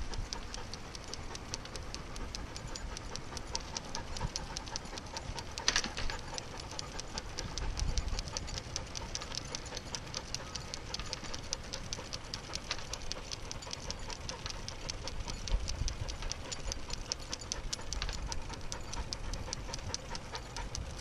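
Dog panting as it trots on a leash beside a moving bicycle, over a rapid, steady ticking and a low rumble. A sharper click comes about six seconds in.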